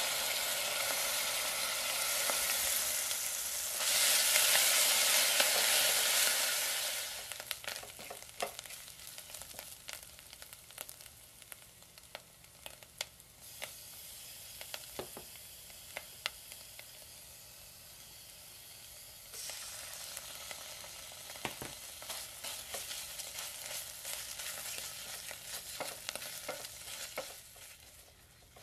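Grated onion hitting hot vegetable oil in a pot: a sudden loud sizzle that peaks in the first several seconds, then settles to a quieter frying hiss. Through the quieter part a metal spatula scrapes and clicks against the pot, and the sizzle picks up again a couple of times as more is stirred or added.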